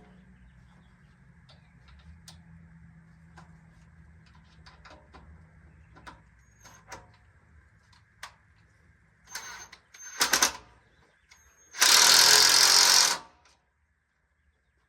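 Impact driver running screws into a Polywood rocking chair: two short bursts, then a longer hammering run of about a second and a half near the end. Faint clicks of parts being handled come before.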